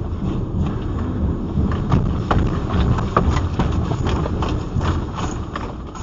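Car cabin rattling and knocking irregularly over a deep rumble as the car is shaken by a strong earthquake. The knocks are thickest in the middle seconds and ease near the end.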